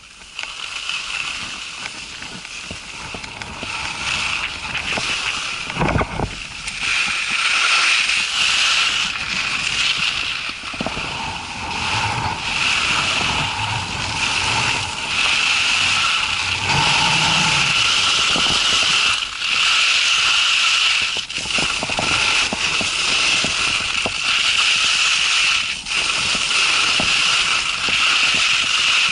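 Strong gusty wind blowing over the camera microphone, a continuous rushing noise that swells and eases, with an occasional knock.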